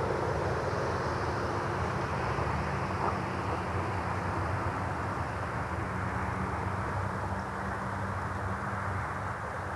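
Steady drone of a distant engine, with a low hum under a broad rushing noise, slowly fading.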